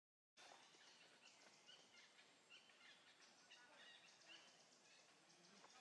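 Faint outdoor forest ambience with scattered short, high chirping calls, after a brief dead-silent gap at the very start.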